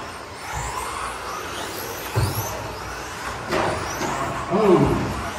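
Electric 13.5-turn brushless-motor stadium trucks racing on a carpet track, their motors whining up and down in pitch as they accelerate and slow. A few sharp knocks come in between.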